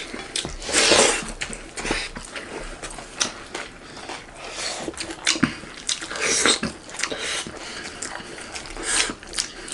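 Close-up chewing and lip-smacking of people eating rice and goat curry by hand, heard as irregular wet clicks and smacks, a louder cluster about a second in and another midway.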